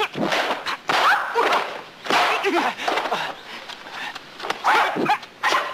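Kung fu fight soundtrack: the fighters give several short high yells and cries that swoop up and down in pitch, mixed with sharp punch and kick hit effects.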